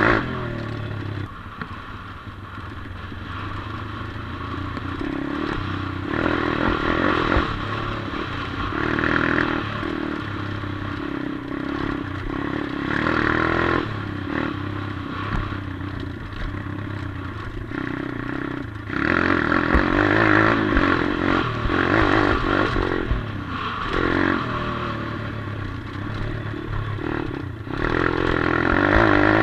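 A 140cc pitbike's single-cylinder four-stroke engine being ridden off-road, the throttle opened in short bursts and then in one longer pull past the middle, easing off in between. The bike rattles and clatters over the rough dirt.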